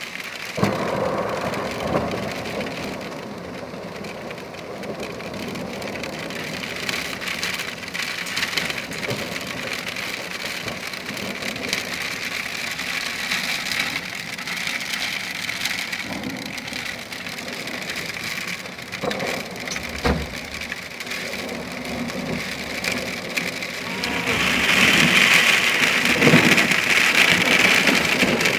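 Heavy rain mixed with hail pelting down in a steady hiss, with scattered sharp knocks. It grows louder near the end.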